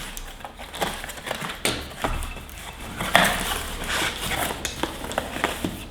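A box being opened and its packaging unwrapped by hand: rustling and crinkling with many sharp clicks and knocks.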